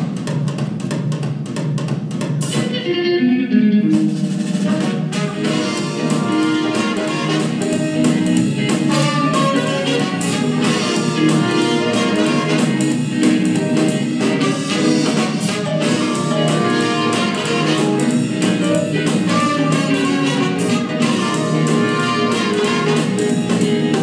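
Upbeat swing-style music with drum kit and guitar, no vocals.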